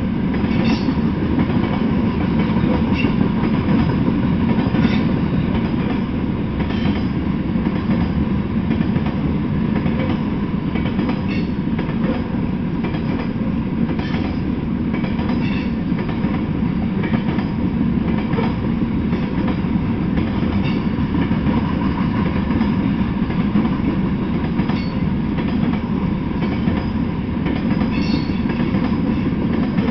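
Freight train of Norfolk Southern covered hopper cars rolling past: a steady rumble of steel wheels on the rails, with a clickety-clack of wheels crossing rail joints every second or two.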